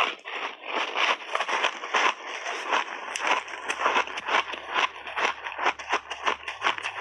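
Close-miked crunching and chewing of hard frozen mixed-berry ice balls: rapid, irregular cracking crunches as the ice is bitten and ground between the teeth.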